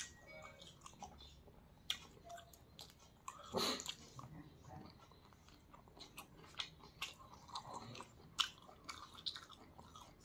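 A person chewing and biting, eating chicken off the bone by hand: irregular small clicks of the mouth at work, with one louder moment about three and a half seconds in.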